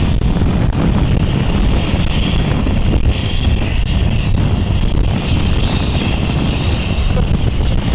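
Steady loud rumble and rushing noise of a day bed being towed behind a truck, with wind buffeting the microphone.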